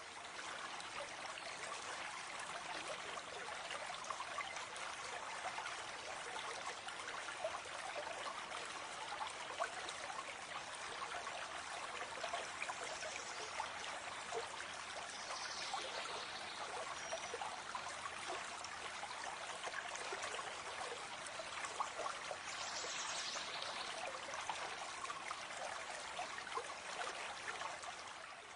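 Muddy flash-flood torrent rushing over a road after heavy rain: a steady, even rush of fast-flowing water.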